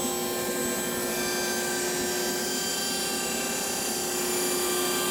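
Panel saw blade cutting through a sheet of half-inch pre-finished birch plywood: a steady whine with the rasp of the cut, at an even level.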